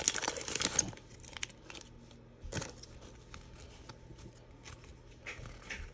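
Foil wrapper of a trading-card pack crinkling as it is torn open, then faint rustles and clicks of the cards being slid out and handled.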